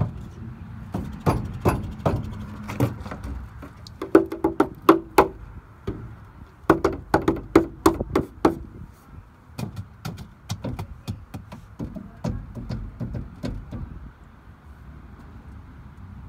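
Go-kart's metal body rattling and knocking as it bounces over a rough lawn: rapid, irregular clanks over a low rumble, with some short metallic ringing. The knocks thin out about fourteen seconds in.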